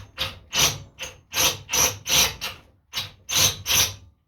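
Drill driving a thread tap into the steel end of a Honda GX270 crankshaft, worked in short rapid pulses of cutting and scraping, about three a second, that stop suddenly near the end.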